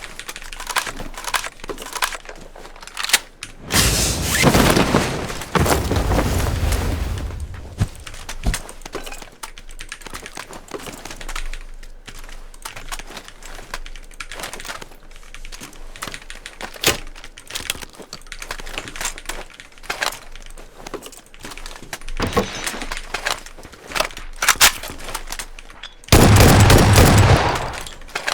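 Shooter video-game audio: a run of gunshots and bursts of automatic fire, with two long, loud booms, one about four seconds in and one near the end.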